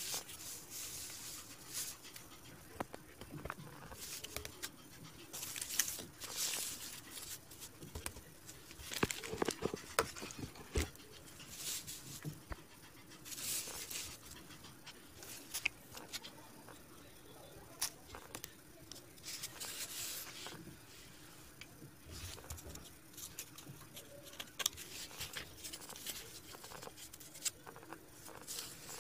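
Quiet, irregular rustles, scrapes and taps of corrugated cardboard pieces being handled and laid on a cutting mat.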